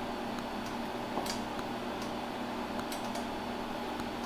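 Quiet room tone: a steady low hum and hiss, with a few faint light clicks.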